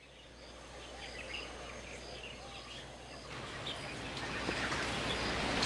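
White-eyes at the nest giving a run of short, high chirps, about two a second, over a steady hiss. A little past halfway a louder, even background hiss takes over and only a few chirps remain.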